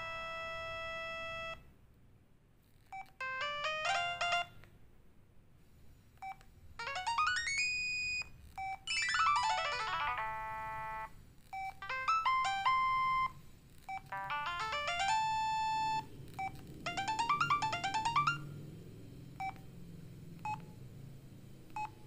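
Huawei C210e phone's built-in MIDI ringtones previewed one after another: short bright electronic phrases of quick rising and falling arpeggios, with a brief gap between each. A few single short beeps follow near the end.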